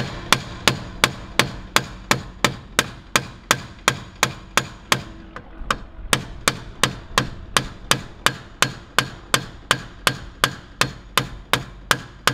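Steady hammering: a long run of sharp, evenly spaced hammer strikes, about three a second, each with a short ring.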